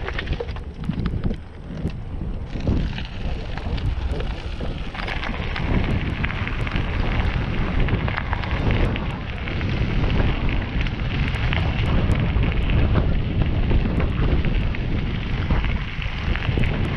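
Bicycle tyres rolling over a loose gravel trail: a steady crackling crunch with a low wind rumble on the microphone.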